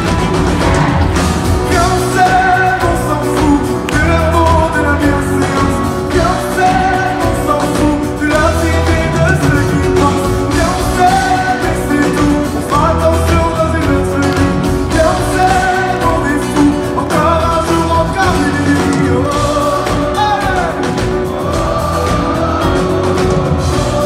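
Live pop song: singing over a full band with drums and electric guitars, at concert volume and heard from the audience in a large hall.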